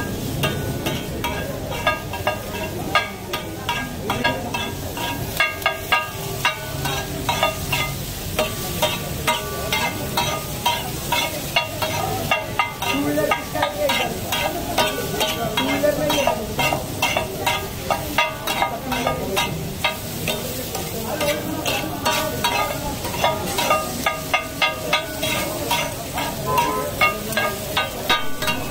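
Two steel spatulas rapidly chopping and scraping potato patties and chopped vegetables on a large flat griddle (tawa). It makes a fast, irregular metallic clatter with a slight ring, over the sizzle of frying.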